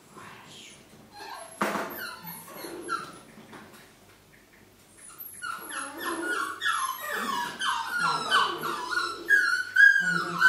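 Dog whining: after a quieter first half with a few soft knocks, a quick run of high-pitched whimpers and yips starts about halfway and ends in a longer drawn-out whine.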